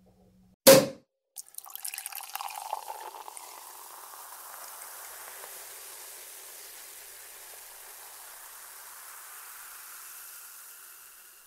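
A champagne cork pops once, loud and sharp, then champagne is poured and fizzes, settling into a steady hiss of bubbles that fades out at the end.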